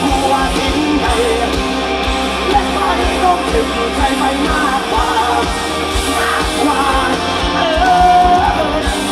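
Live rock band playing a song with singing over a steady kick-drum beat, loud throughout.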